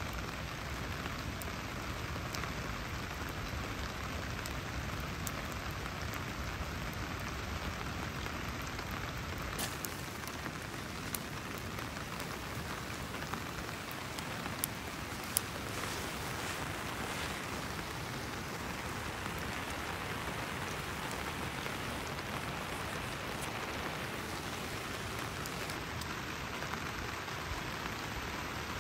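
Steady rain falling, an even hiss of drops, with a few sharp clicks in the middle stretch.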